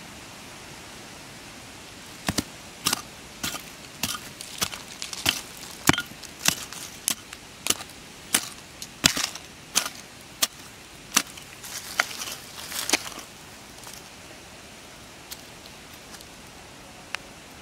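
A small hand pick chopping into dry, stony soil. About seventeen strikes come at an even pace, roughly three every two seconds, and then stop, all over a steady hiss.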